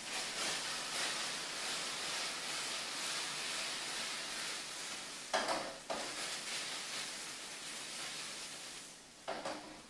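Jerk-marinated chicken breasts sizzling in a hot skillet as they are turned, the marinade caramelizing in the pan. Two brief louder sounds break in about halfway and near the end, and the sizzle quiets shortly before the end.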